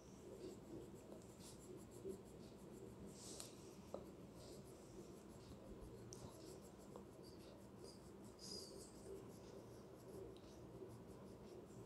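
Faint, irregular scratching of a crayon rubbed back and forth on notebook paper while colouring in.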